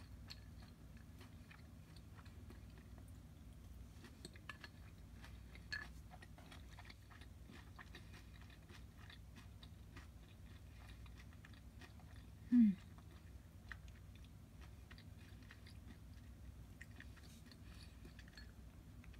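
A person chewing fried horse mackerel coated in potato starch and glazed in sweet vinegar sauce: soft mouth sounds with faint, scattered crackly clicks. About two-thirds of the way through comes a short hummed "mm" that falls in pitch, the loudest sound here.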